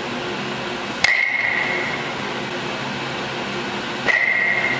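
Baseball bat hitting a ball off a batting tee twice, about a second in and again near the end, each sharp crack followed by a ringing tone of about a second. A steady hum runs underneath.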